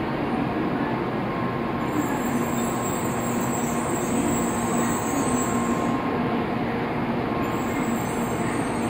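N700A-series Shinkansen train moving slowly along the track: a steady rumble and hum, with a thin high whine that comes in about two seconds in, fades, and returns near the end.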